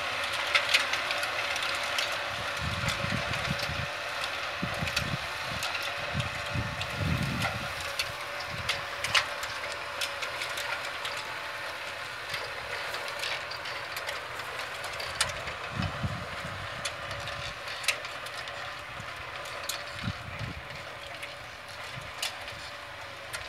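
Tractor engine and the manure spreader it pulls running steadily while spreading cattle manure, slowly fading as the rig moves away, with scattered clicks.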